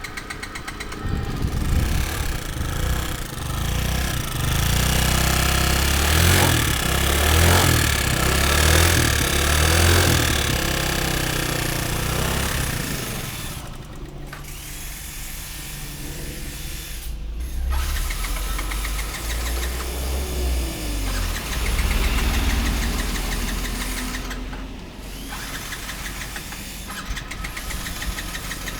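Yamaha Jog scooter engine running and revved up and down several times, with an abnormal noise that goes with its hard starting.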